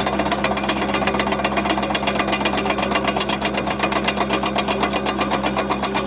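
Hyundai R555-7K excavator's diesel engine running steadily, with a fast, even clatter over a steady hum.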